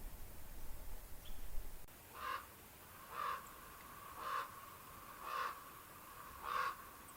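A low rumble stops abruptly about two seconds in. Then a bird calls five times at about one-second intervals, each call short and evenly spaced.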